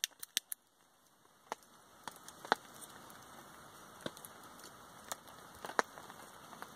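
A few sharp clicks of a storm gas lighter being sparked, then a faint steady hiss with scattered crackles and pops as feather-stick kindling catches inside a small folding wood-burning stove.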